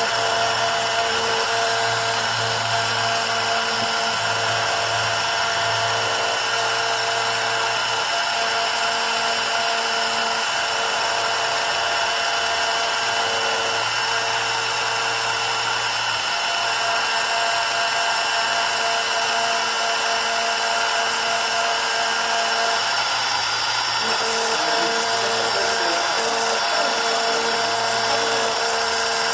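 CNC engraving machine's spindle running steadily as it cuts copper, a constant high whine over a dense hiss. A lower hum under it changes pitch a few times.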